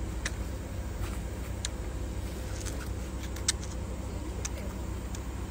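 Car engine idling with a steady low hum, with a few sharp clicks and ticks over it, the loudest about three and a half seconds in.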